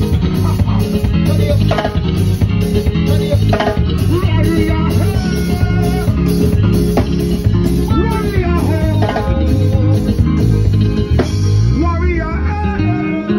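Live band playing an upbeat groove with a steady beat: electric bass and keyboards over a drum kit.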